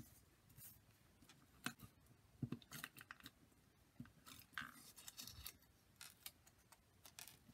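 Handheld adhesive tape runner being drawn across cut cardstock leaves: faint scattered clicks and short rasping strokes as the tape is laid down, with light paper rustling.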